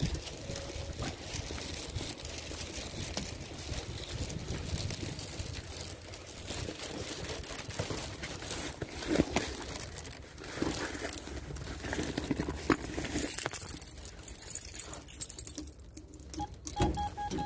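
Footsteps on frozen ground with wind rumbling on the microphone, then keys jangling on a key ring. Near the end a key fob is touched to an apartment door intercom, which answers with a steady electronic beep.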